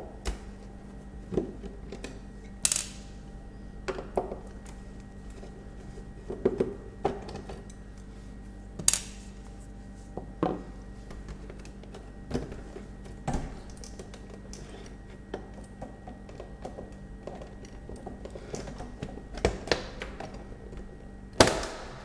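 Scattered clicks, taps and light knocks of a screwdriver and screws being worked out of a refrigerator's plastic water-dispenser panel, with a few sharper clicks standing out, over a steady low hum.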